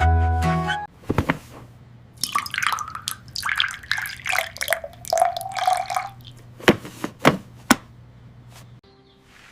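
A short music phrase ends about a second in, then wet dripping and lapping sounds, with three sharp drips near the end.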